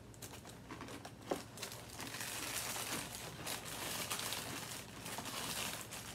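Plastic cereal-bag liner crinkling as it is handled in its cardboard box, the crinkling growing dense from about two seconds in, with a sharp click just over a second in.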